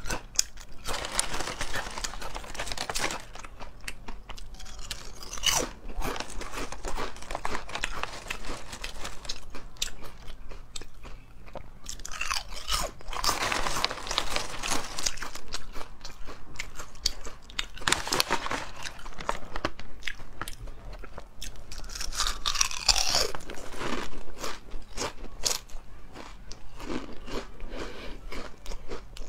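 Close-up crunching and chewing of very thin, crisp yam chips, bite after bite, with irregular crackling clicks coming in louder spells.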